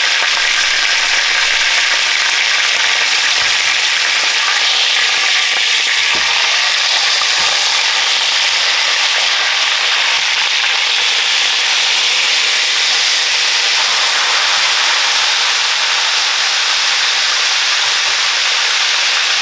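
Whole chicken searing in hot oil in a large pot, sizzling steadily and loudly.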